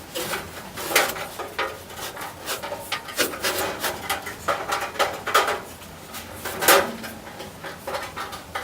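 Irregular clicks, knocks and scraping from sheet-metal floor panels and tools being handled and marked, a few knocks ringing briefly; the loudest come about a second in and near the end.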